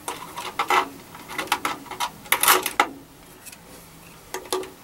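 Small circuit board and wiring being handled and set onto mounting screws inside a metal amplifier chassis: a run of light clicks and rattles, busiest about halfway through.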